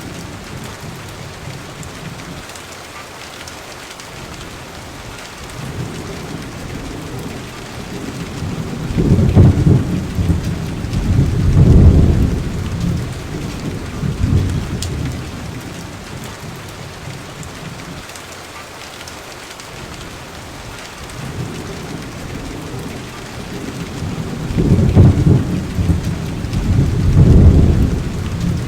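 Steady rain with rolling thunder: a long low rumble about a third of the way in, and another near the end.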